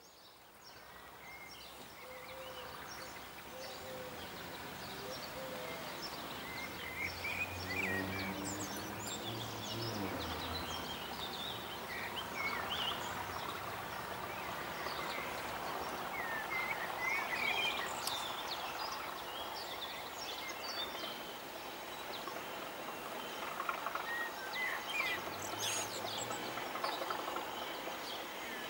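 Birds singing and chirping over a steady outdoor background hiss, with a faint low hum at times.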